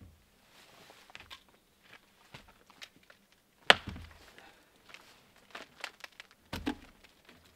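Homemade wooden branch ladder knocking and scraping against a cabin wall as it is gripped and shifted by the rungs. There is one sharp clack about halfway through and a cluster of knocks near the end, with footsteps and rustling between.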